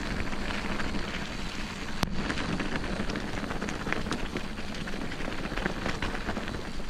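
Bicycle tyres rolling over a rough winter forest track: a steady crackling crunch with a low rumble underneath, and a single sharp click about two seconds in.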